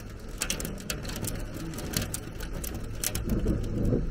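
Storm rain and hail striking roofs and nearby surfaces: scattered sharp ticks over a steady low rumble, which swells louder about three seconds in.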